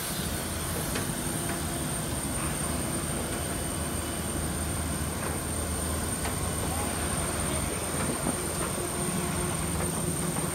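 Parked airliner's auxiliary power unit running: a steady high whine over a low hum, with a few faint clicks.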